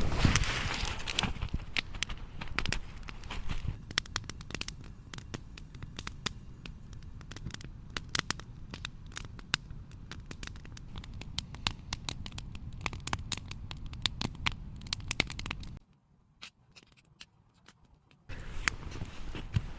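Wood campfire crackling, with frequent sharp pops and snaps. The sound drops out for about two seconds near the end.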